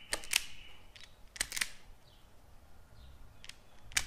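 Hand-held wire stripper snapping shut on thin wires: several sharp clicks, mostly in pairs, as its jaws grip and strip the insulation.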